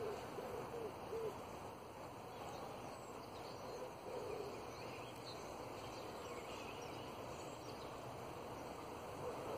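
A dove cooing in short, low hooting notes: a group at the start and another about four seconds in, with faint songbird chirps behind.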